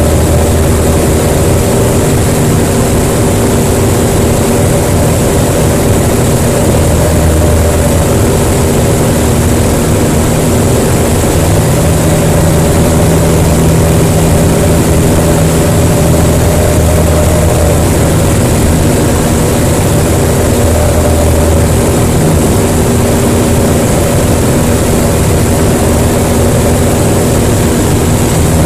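A Jabiru LSA-55 light aircraft's engine and propeller, heard from inside the cockpit, droning steadily in flight.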